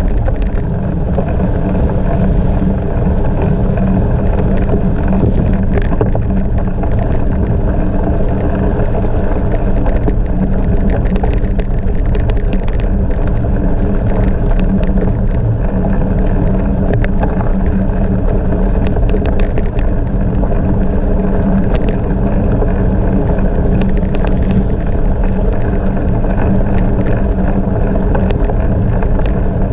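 Bicycle riding on gravel at speed: a steady rush of wind buffeting the microphone over the rumble of tyres rolling on gravel, with scattered small clicks and crackles.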